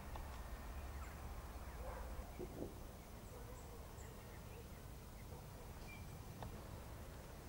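Quiet outdoor ambience: a steady low rumble with a few faint, short, high bird chirps scattered through it.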